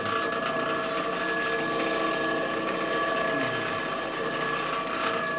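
Electric potter's wheel running at a steady speed, its motor giving a steady whine with several tones, while wet clay is centred on the spinning wheel head under the hands.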